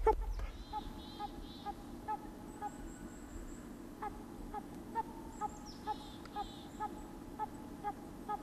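Dog-like yelping barks repeated about twice a second, loud at the very start and then faint, the bay of a hunting hound on a trail.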